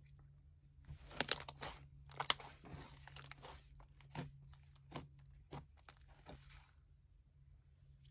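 Soft, creamy slime being squished and stretched by hand, crackling with a few sharp pops spread through the first seven seconds; the sticky slime clings to the table as it is worked.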